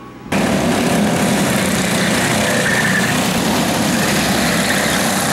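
Several racing go-karts' Briggs & Stratton 206 single-cylinder four-stroke engines running at speed on track, one dense, steady drone that cuts in suddenly just after the start.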